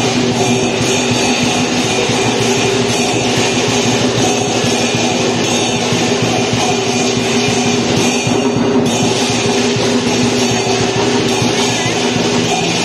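Loud, continuous lion-dance percussion: drums with clashing cymbals keeping up a steady din.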